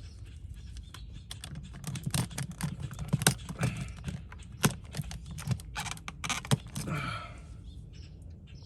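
Irregular light clicks and short scrapes of metal and plastic as an electrical outlet and its screws are worked on by hand with a screwdriver.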